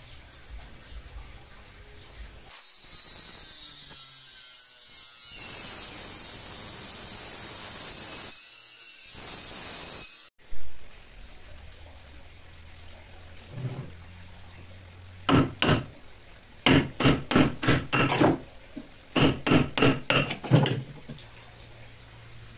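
A steady hiss for several seconds that cuts off abruptly, then a single knock. Later comes a string of sharp, ringing hammer blows, about three a second in short runs, knocking out the wood between saw kerfs to cut a notch in a thick old beam.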